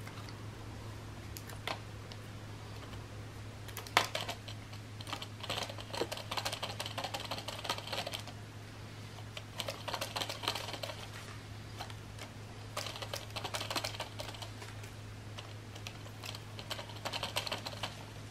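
Hands handling a plastic bottle wrapped with braided fishing line. The sound is bursts of fast clicking and rustling, each a second or two long, with one sharp click about four seconds in, over a steady low hum.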